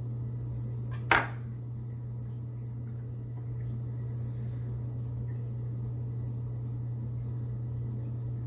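A single sharp clack about a second in: a kitchen knife set down on a wooden cutting board. A steady low hum runs underneath.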